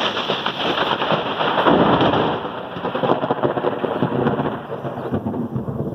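Thunder rumbling. It starts suddenly, is loudest about two seconds in, then eases off while still rolling on.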